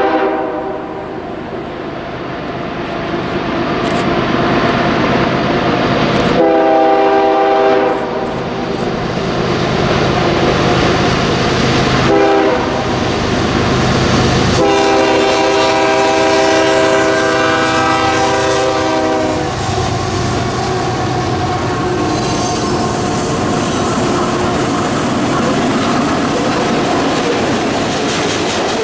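Canadian Pacific GE ES44AC locomotives sound their air horn for a grade crossing: one blast at the start, another about six seconds in, and a long blast of about five seconds starting around fifteen seconds in. The locomotives and a string of covered hopper cars then roll past.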